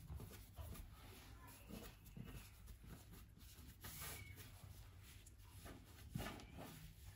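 Faint rustling and soft taps of hands rolling thin phyllo dough into a long roll on a wooden tabletop, with a slightly louder rub about six seconds in.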